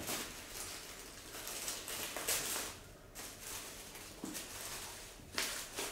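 Paper rustling and crinkling as the white paper wrapping inside a handbag box is handled and unfolded, in a run of brief bursts, the loudest about two and a half seconds in and again near the end.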